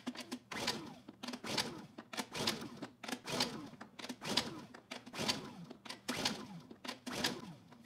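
Honda EU2000i inverter generator's recoil starter pulled over and over, about eight pulls at roughly one a second, the engine turning over on each pull without catching. The owner takes the no-start for a flooded engine or a lack of spark.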